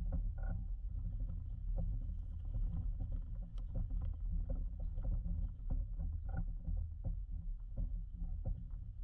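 2011 Jeep Wrangler Rubicon's 3.8-litre V6 running at low revs as the Jeep crawls a rocky off-road trail, a steady low rumble. Frequent short knocks and clicks come in throughout.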